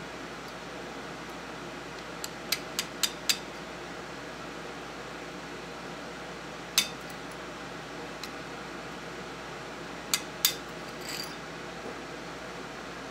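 Sharp metal-on-metal clicks as a long steel punch is worked against the cartridge retainer inside a Remington Model 12 rifle receiver: a quick run of about five a couple of seconds in, a single one near the middle, and two more near the end, over a steady background hiss.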